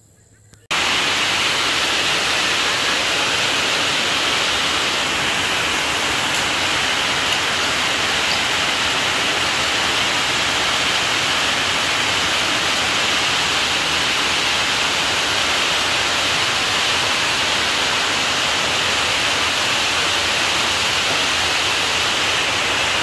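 Loud, even static hiss with no rhythm or variation in level, switching on suddenly under a second in.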